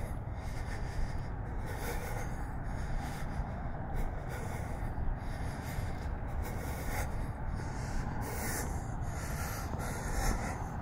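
A walker's breathing, picked up close by the camera's built-in microphone: airy, hissy breaths every second or so over a steady low rumble.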